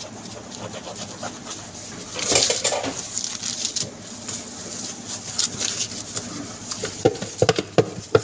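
Handling noises at a sandwich counter: a rustle about two seconds in, then a quick run of sharp clicks and knocks near the end, from utensils or containers being handled.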